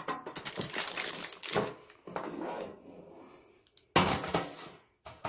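Clear plastic packaging crinkling and crackling as it is handled and pulled out of the box, in uneven bursts, with the loudest burst about four seconds in.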